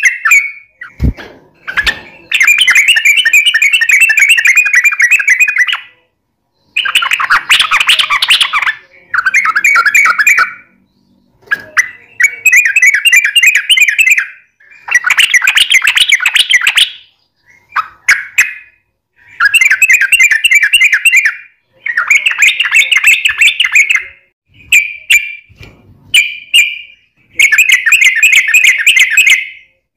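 Yellow-vented bulbul (trucukan) singing loud phrases of rapid, run-together notes in long rolls. Each phrase lasts about one to three seconds, with short pauses between.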